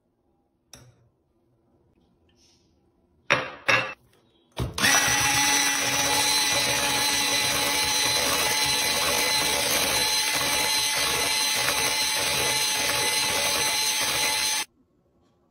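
Electric hand mixer with twin wire beaters switched on about a third of the way in, running at a steady speed with a constant whine as it beats eggs into creamed butter and sugar in a glass bowl, then cutting off suddenly near the end. Before it starts come a faint click and two short sharp knocks.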